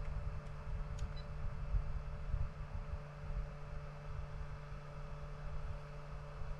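A steady low hum with two fainter, higher steady tones, over uneven low rumbling typical of wind on the microphone. There is a faint click about a second in.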